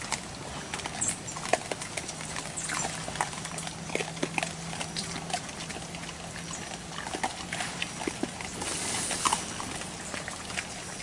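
Collared peccaries moving and feeding at a corn bait pile: a run of irregular sharp clicks and cracks.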